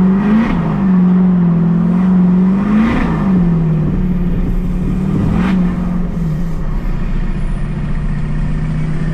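Duramax turbodiesel engine heard from inside the truck's cab, its revs climbing and then dropping sharply three times as the T56 manual gearbox is shifted, then running at a steadier, lower speed for the last few seconds.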